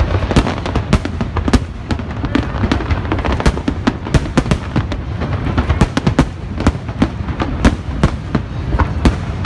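Fireworks going off: a dense, irregular string of sharp bangs and crackles, several a second, over a continuous low rumble of distant bursts.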